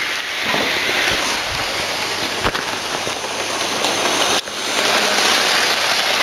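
Model train running on its track close to the microphone, the wheels and motor making a steady, noisy rattling hiss.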